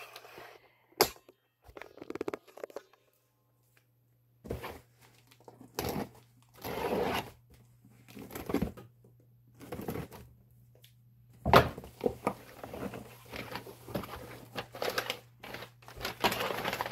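A cardboard shipping box being opened by hand: knocks and scrapes as it is handled, packing tape torn from the seam, and the flaps pulled back, in irregular bursts with one sharp loud rip past the middle. Near the end, brown kraft packing paper inside is rustled and crinkled.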